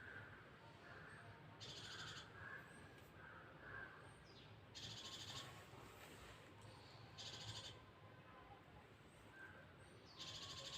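Near silence with faint bird calls: a short, high, buzzy call repeats four times, about every three seconds, with softer chirps between.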